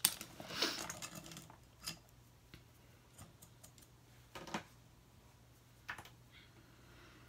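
Makeup brushes and small makeup items handled while picking out an angled brush: a soft rustle at first, then a few scattered light clicks.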